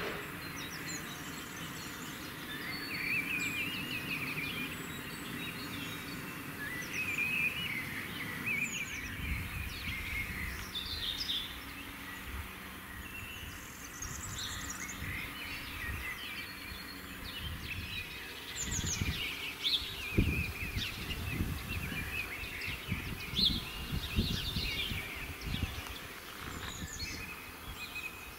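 Songbirds chirping and trilling, with irregular bursts of low rumbling, most of them in the second half.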